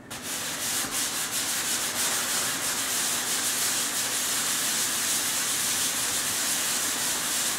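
Hand sanding with 150-grit sandpaper on a sanding block, rubbed back and forth over dried joint compound on hardboard: a steady, loud scraping rub.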